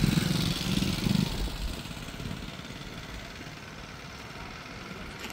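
A motor vehicle's engine running, loud for about the first second and a half, then dropping to a low steady background noise.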